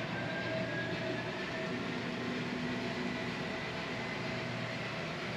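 HO scale model train running on its layout track: a steady rolling rumble with a faint motor whine that rises slowly in pitch.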